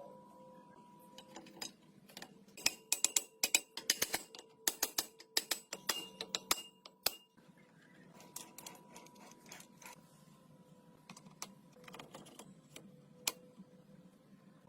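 A rapid run of sharp clicks and taps, densest for a few seconds about two seconds in, then thinning out to scattered ticks. A faint steady hum sits underneath.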